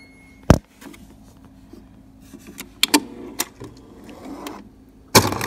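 Refrigerator door ice dispenser being worked by hand: a sharp click about half a second in, a few knocks around the middle, and near the end the dispenser's motor runs loudly as ice cubes drop out into a cupped hand.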